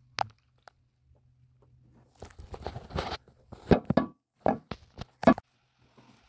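A run of irregular sharp knocks and clatter, as of hard objects being handled and set down, starting about two seconds in, with a single knock at the very start. A faint steady low hum underneath.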